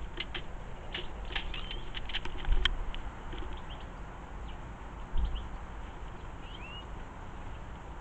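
Quick short chirps and ticks of small garden birds, busiest in the first three seconds, with a few gliding notes later on. Two low thumps, about two and a half and five seconds in, come from a feral pigeon moving about on the wooden bird table.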